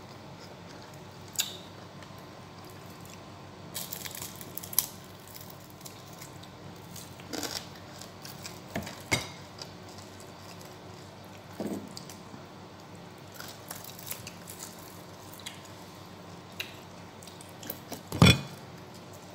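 Close-up eating by hand: mouth smacks and chewing, with scattered small clicks and one louder knock near the end.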